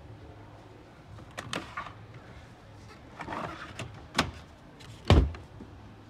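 Clicks, knocks and a short scrape from handling an open front-loading washing machine's door and stainless steel drum, ending in one deep thump about five seconds in.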